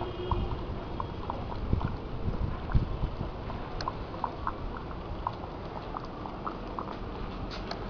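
Water trickling and dripping in a home aquaponics system, the grow bed draining through its pipe into the fish tank, with irregular small plops. A few low bumps come about two to three seconds in.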